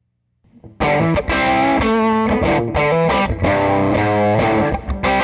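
Electric guitar played through distortion, a busy riff of changing notes that starts about a second in, just after a brief silence.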